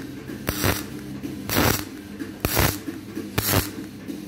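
MIG welding on aluminium in short stitch welds: four brief crackling bursts of the arc, about a second apart, with a steady low hum underneath.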